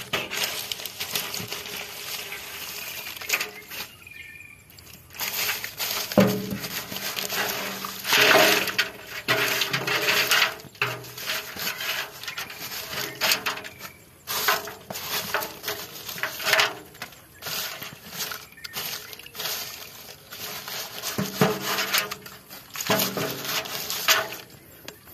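Wet leaf litter and twigs rustling and crackling in irregular bursts, with scattered taps and patters.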